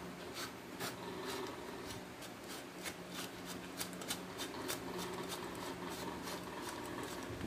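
Scattered faint clicks and rubbing from a stainless-steel automatic livestock syringe being handled and twisted apart by hand, over a steady low hum.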